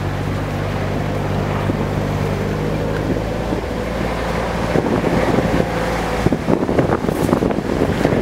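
A vehicle's engine running steadily as it drives along a rough dirt track, with wind buffeting the microphone. About six seconds in, the buffeting and jolting grow heavier and bury the engine hum.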